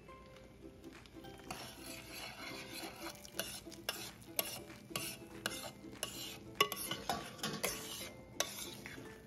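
Metal spoon stirring arborio rice in a risotto pan, scraping and clinking against the pan. The stirring starts about a second and a half in.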